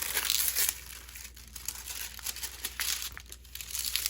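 Plastic packaging from a diamond painting kit crinkling as it is handled. The rustling is loudest at the start, with a few more short rustles later.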